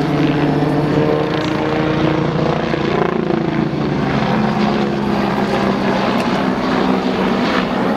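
Agusta A109BA twin-turbine helicopter in flight: steady turbine whine over the rapid beat of the main rotor blades, the tone dropping in pitch about halfway through as it passes.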